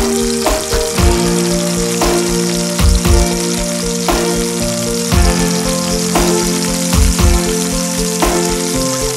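Chicken pieces sizzling steadily as they fry in butter and oil in a nonstick wok. Background music with held chords and a soft beat plays alongside.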